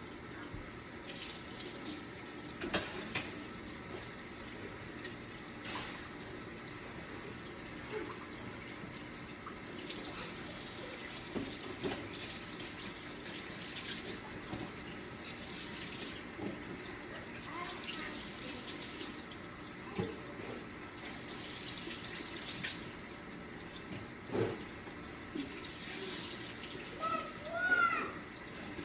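Kitchen faucet running while celery stalks are rinsed under it. The splash grows brighter and fades again every few seconds as the stalks are moved in and out of the stream, with a few light knocks against the sink.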